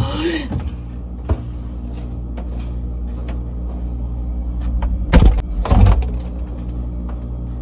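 Handling noise at an open refrigerator as groceries are put away: a light knock about a second in, then two heavy bumps close together around five to six seconds in, over a steady low hum.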